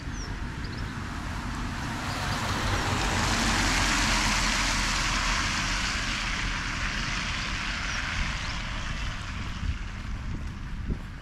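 A car driving past on a wet road, its tyres hissing on the wet tarmac. The hiss builds over a couple of seconds, is loudest about four seconds in, then fades away as the car moves off.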